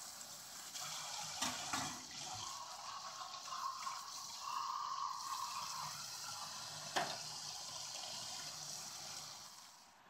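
Kitchen tap running into a stainless steel sink, the water splashing over a mesh dishwasher filter held under the stream. There is a single sharp knock about seven seconds in, and the water sound fades away just before the end.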